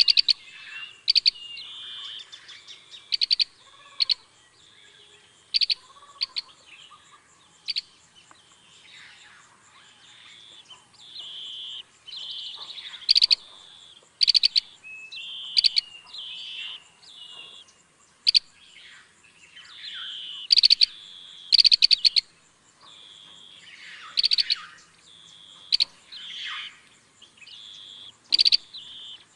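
Green bee-eaters calling: short, high, rattling trills repeated every second or two, between thinner, held high notes.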